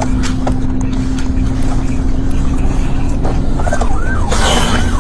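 Police car siren starting up in a fast rising-and-falling yelp in the last second and a half, over a steady engine and road drone, with a short burst of hiss just after it begins.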